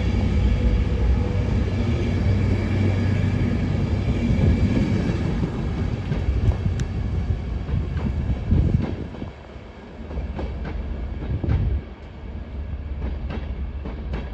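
Diesel-hauled train pulling away, a Class 67 locomotive's two-stroke V12 engine working with Mk4 coaches. A steady low drone from the engine and the rolling coaches fills the first half, then fades as the train draws off, leaving sharp clicks from wheels over rail joints.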